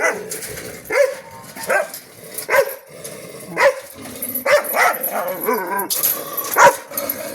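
A dog barking over and over, about once a second, in short, loud barks.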